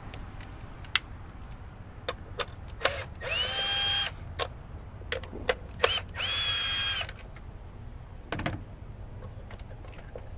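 Power drill running a Torx bit in two short spells of about a second each, the motor whine rising quickly and then holding steady, as fasteners are backed out. Sharp clicks of tools and parts being handled come between the runs, and there is a knock near the end.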